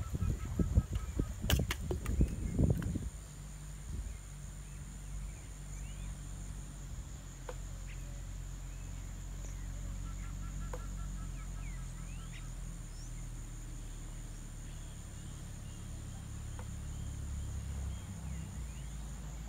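Tropical outdoor ambience: a steady high-pitched insect drone, a few short bird chirps and two brief pulsing trills, over a low steady rumble. A few loud low thumps come in the first three seconds.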